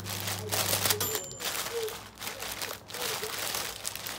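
Thin plastic shopping bag crinkling and rustling in irregular bursts as a cat noses into it and pushes it around.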